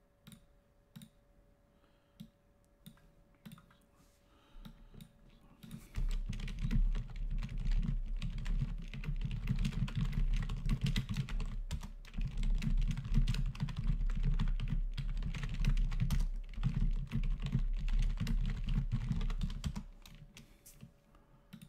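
Typing on a computer keyboard: a few scattered key presses, then rapid continuous typing from about six seconds in, stopping shortly before the end.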